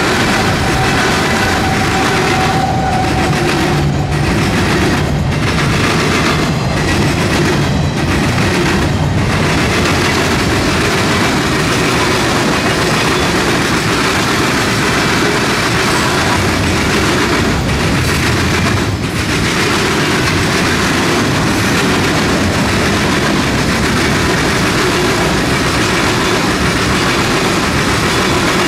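Canadian National mixed freight train's tank cars and covered hoppers rolling past close by: a loud, steady rumble and clatter of steel wheels on the rails.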